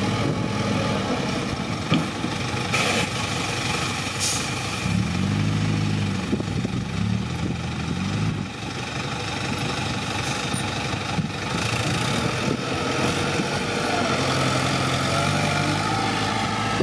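A loaded dump truck's engine running at low revs, its pitch rising and falling briefly about five to seven seconds in. A single short knock about two seconds in.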